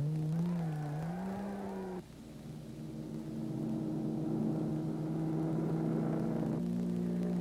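Race car engines revving, the pitch swinging up and down for the first two seconds, then running steadily, with sudden shifts in pitch about two seconds in and again near the end.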